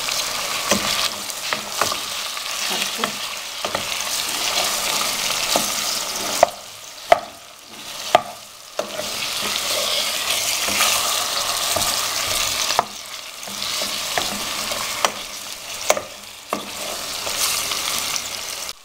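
Chicken pieces and chopped onion sizzling in hot oil in a stone-coated nonstick pan while being stirred with a wooden spoon, with a few sharp knocks of the spoon against the pan. The sizzle dips briefly several times as the chicken is turned.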